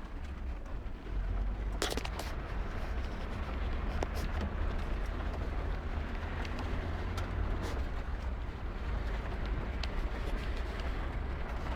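Daihatsu rally car's engine and drivetrain running with a steady low rumble as it drives off-road, heard from inside the cabin, with a few sharp knocks and rattles as it goes over rough ground.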